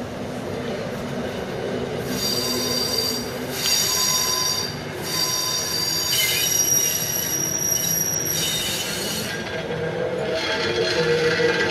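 Steel wheels of a diesel-hauled passenger train squealing against the rails as the coaches roll past. The high squeal comes in several long stretches, one after another, over the train's steady rumble.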